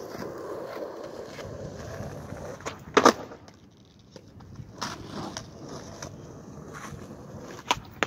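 Skateboard wheels rolling on asphalt. About three seconds in comes a loud clack of the board popping and slapping down on a flip-trick attempt, then softer single knocks of the board and rolling again.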